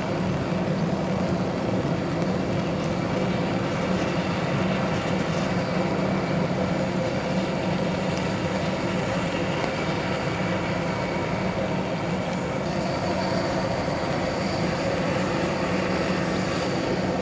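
Airbus A320neo's Pratt & Whitney PW1100G geared turbofan engines running steadily with a thin whine. A higher whine joins about two-thirds of the way in.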